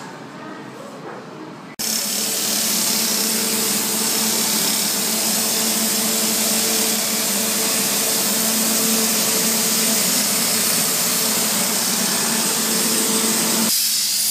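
Mobile sandblasting rig running: a loud, steady hiss of the blast over the hum of its compressor engine. It starts abruptly about two seconds in, after a quieter stretch of machinery, and stops abruptly near the end.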